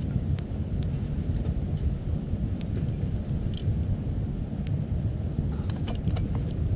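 Wood fire crackling in a small titanium wood stove: scattered sharp snaps and pops, a cluster of them in the second half, over a steady low rumble.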